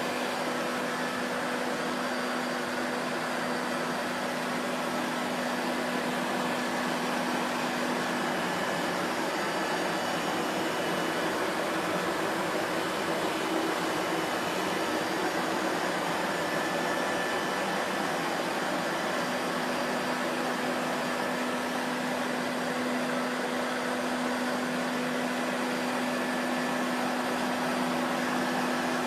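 Vacuum cleaner running steadily: an even rushing of air over a constant low motor hum, with no change in pitch or level.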